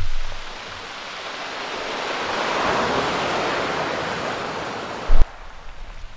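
Surf on a shingle beach: a wave washing in, swelling and then fading over a few seconds. About five seconds in comes a single sharp knock, after which the surf is quieter.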